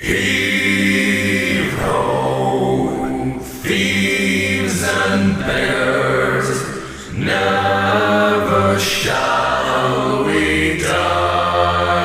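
Low voices singing a slow, chant-like shanty a cappella, with held notes in phrases of about two seconds and short breaths between them.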